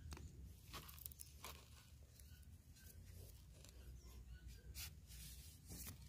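Faint, scattered clicks and light scrapes of dry twigs being handled and set on sandy ground while a stick trap is built over a corn cob, against a faint low rumble.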